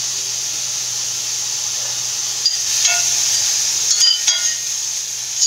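Broccoli sizzling steadily in a hot kadai with freshly squeezed lemon juice, while a metal spoon stirring it strikes the pan about five times in the second half, each knock ringing briefly.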